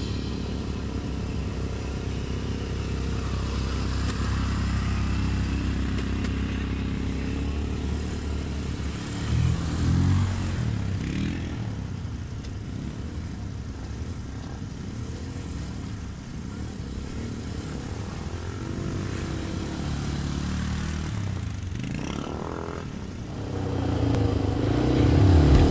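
Quad bike (ATV) engines running as a line of ATVs drives through a shallow stream. The engines get louder about ten seconds in, as one passes nearer, and the engine pitch rises and falls around twenty seconds in.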